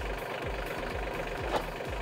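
LS compact tractor's diesel engine idling steadily while it warms up after a cold start, with an even, rapid knock. A single short knock sounds about one and a half seconds in.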